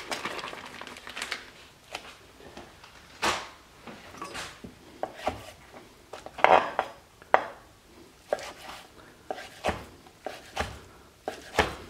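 Chef's knife slicing raw bacon strips on a wooden cutting board: a dozen or so sharp knocks of the blade on the board at uneven spacing.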